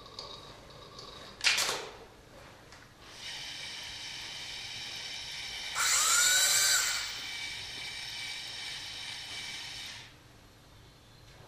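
Electric drive motor of a bomb-disposal robot's gripper, whining steadily with several high tones as it moves the rubber-padded jaws down onto a suitcase. The whine gets louder for about a second midway, with a rising note, and stops shortly before the end. A single sharp knock comes about a second and a half in.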